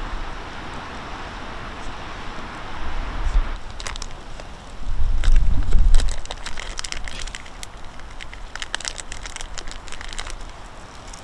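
Wind rushing on the microphone, then a string of sharp rustling, crackling clicks of close handling noise, with a heavy low rumble of a gust or knock about five seconds in.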